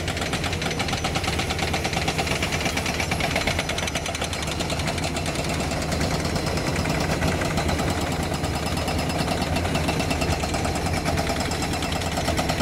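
Excavator-mounted hydraulic rock breaker hammering rapidly and without pause, over the steady running of the excavator's diesel engine.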